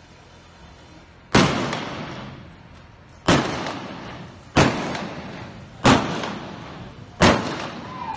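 Five single revolver shots fired from horseback, from blank cartridges, coming at uneven gaps of about one and a half to two seconds. Each shot is followed by a long echo in the enclosed arena.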